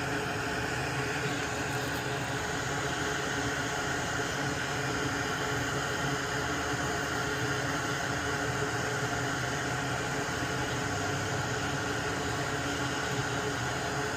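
Steady fan noise: an even whooshing hiss of blown air with faint steady hums beneath it, unchanging throughout.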